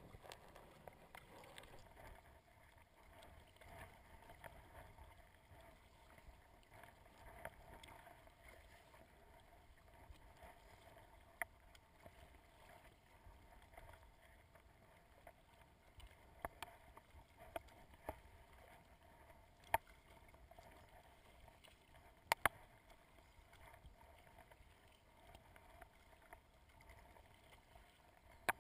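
Faint sound of a sit-on-top kayak being paddled on choppy sea: water splashing and lapping at the hull, with a few sharp clicks here and there.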